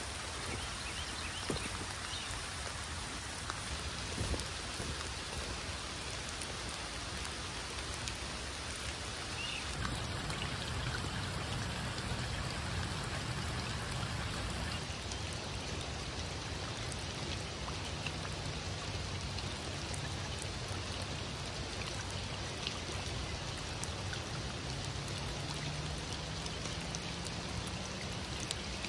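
Steady rain falling on water and ground, an even hiss, with a few footsteps crunching on gravel in the first few seconds.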